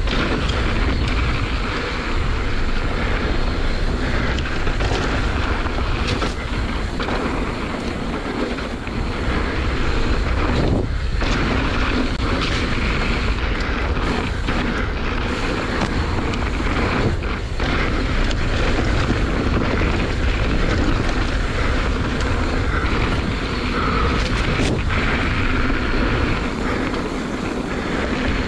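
Mountain bike descending a rough dirt trail: a steady rush of wind on the microphone and tyre noise, with a few sharp knocks from the bike over rough ground.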